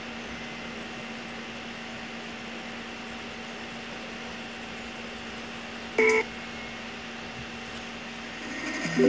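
A steady hum, with one short beep-like tone about six seconds in.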